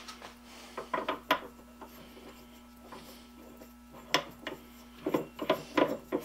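Scattered light clicks and knocks of a metal hole saw and its arbor being handled and fitted into a lathe chuck, with a faint steady hum underneath.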